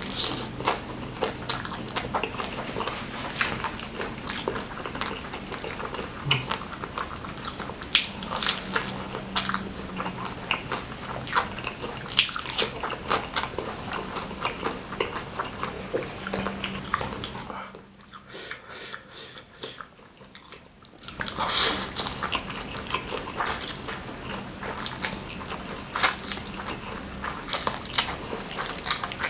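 Close-miked chewing and biting of spicy instant noodles and egg martabak: a dense run of wet smacks and mouth clicks, which thins out for a few seconds past the middle and then picks up again with a louder cluster.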